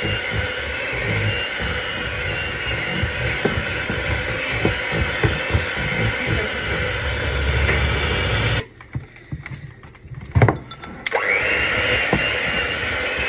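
Electric hand mixer running, its beaters creaming butter and sugar in a glass bowl. It cuts off about two-thirds of the way through, there are a few clicks and one sharp knock, and then it starts again with a rising whine as it comes up to speed.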